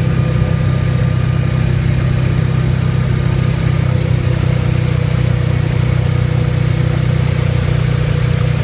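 Steady engine and road hum of a car being driven, a constant low drone with no change in speed.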